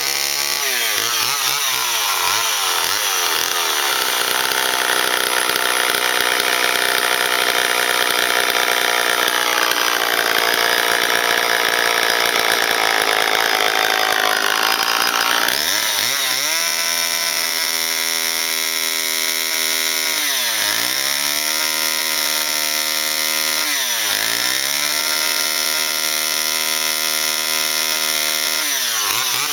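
Vintage Homelite two-stroke chainsaw from about 1966–67 running at high revs while carving arbutus wood. For the first half it cuts steadily; then its engine note turns clear and high, dips sharply twice as the revs drop and pick up again, and falls near the end.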